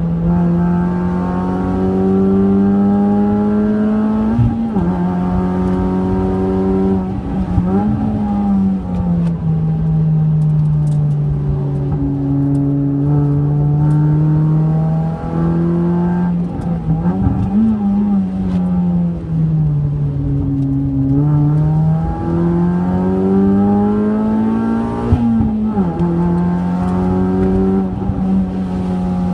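Honda Fit RS (GE8) 1.5-litre four-cylinder engine heard from inside the cabin, pulling hard in third gear between roughly 4,300 and 5,700 rpm. Its note climbs under throttle and drops quickly several times as the throttle is lifted for corners.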